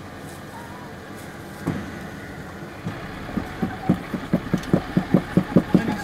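Jeep Wrangler Rubicon running slowly as it crawls up rocks. About three seconds in, a rapid rhythmic pulsing starts at about four to five beats a second and grows louder.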